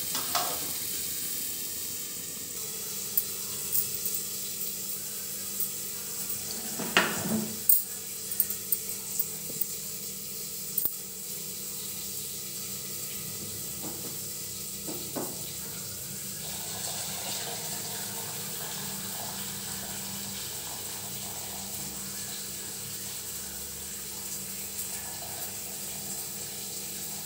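Starch water pouring off freshly boiled rice as a steel pot is held tilted to drain it, a steady running of water. A few clinks of the metal pot and lid are heard.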